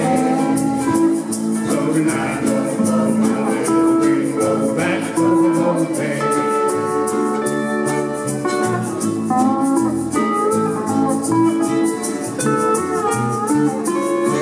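Ukulele band playing a song together: many ukuleles strumming a steady rhythm, with a melody of held notes over the top.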